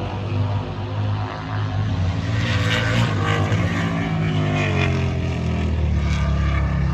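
Racing motorcycle engines running hard on a race track, their pitch rising and falling as the bikes rev and pass.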